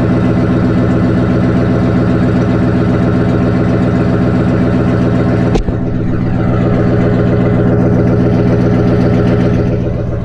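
Ford 5.4-litre V8 running at a steady idle after a cold start, heard close to the tailpipe. A single knock about halfway through, after which the exhaust sounds a little duller.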